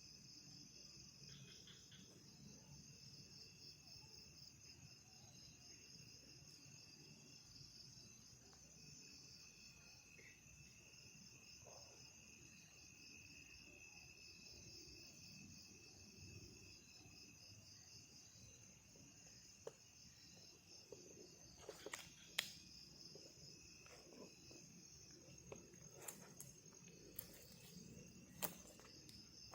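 Faint, steady chirring of night insects such as crickets, holding a high pitch with a second, lower band. In the second half come a few faint clicks and knocks.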